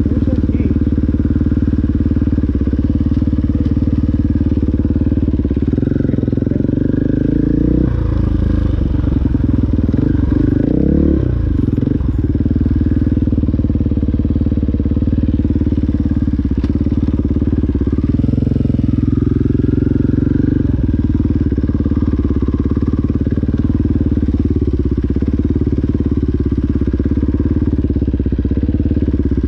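KTM 500 enduro dirt bike's single-cylinder engine running while the bike is ridden along a trail, mostly at a steady throttle. About a third of the way in, the engine note drops and rises several times as the throttle comes off and back on.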